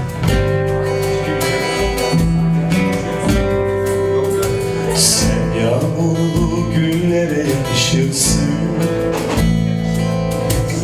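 Live acoustic song: strummed acoustic guitar over sustained low notes, with a singing voice coming in during the second half.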